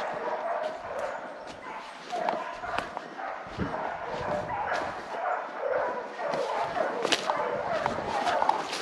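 A pack of hunting dogs baying and yapping without pause, holding a wild boar at bay. Dead leaves rustle and twigs snap underfoot.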